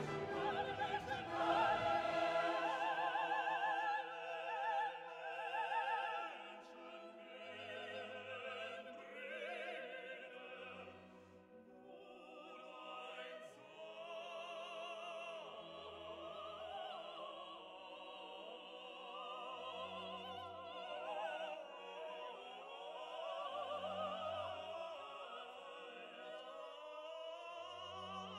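Background music: a slow, classical-style piece with a singing voice in strong vibrato, and a short low note about every four seconds.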